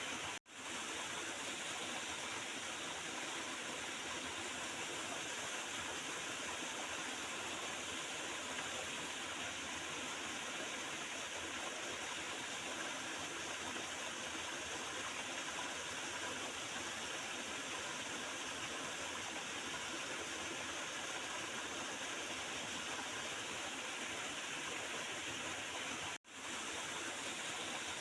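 Water of a small river flowing and gurgling in a steady, even rush. The sound cuts out to silence for a moment twice, just after the start and near the end.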